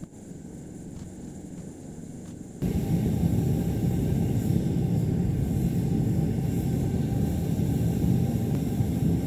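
Steady low roar of a gas-fired foundry furnace burner, starting abruptly about a quarter of the way in; before it, only a faint low hum with a few light clicks.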